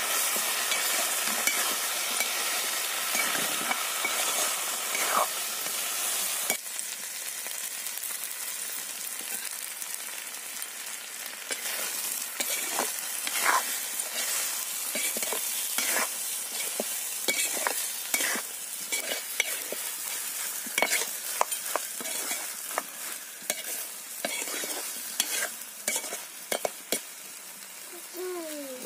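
Brinjal and potato curry sizzling in oil in a black kadai while a metal spatula stirs and turns it. The spatula's scrapes and clicks against the pan come thick and fast in the second half.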